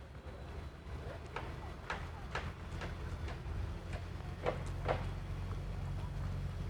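Footsteps on hard paving, sharp steps about two a second, over a low steady rumble.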